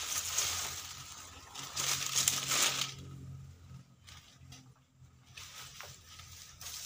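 Dry fallen palm fronds rustling as a man shifts his footing among them and handles a long pole, loudest over the first three seconds, with another short burst near the end.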